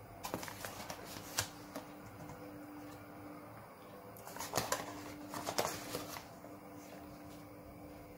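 Metal spoon scooping cornflour out of a cardboard box and tipping it into a ceramic bowl: dry scraping and rustling with light clicks, in two bouts, the first about half a second in and the second about four and a half seconds in.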